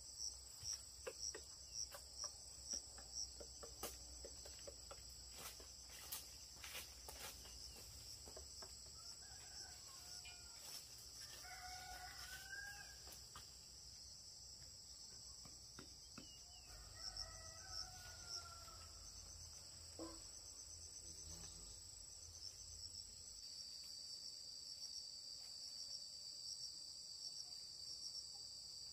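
Insects chirping steadily and faintly, pulsing at first and then a continuous trill. A rooster crows twice, once about a third of the way in and again past the middle, each crow lasting a couple of seconds.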